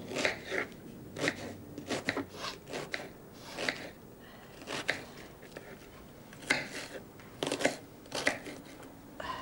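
Knife cutting food on a cutting board, in irregular sharp strokes with short pauses between them.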